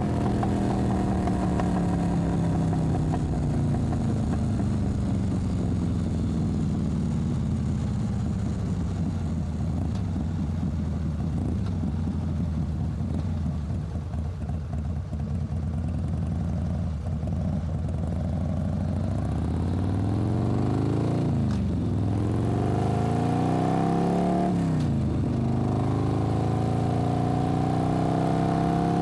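Motorcycle engine on a ride at low revs. Its note slowly falls over the first half as the bike slows, then climbs and drops back sharply twice in the last third, as with gear changes, before climbing again near the end.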